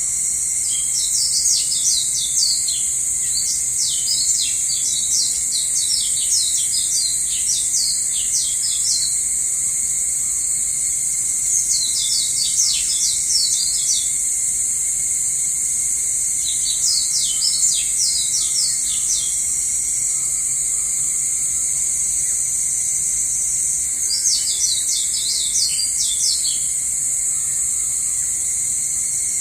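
Songbirds singing in four bouts of rapid, high chirping notes, each lasting a few seconds, over a steady high-pitched drone of insects.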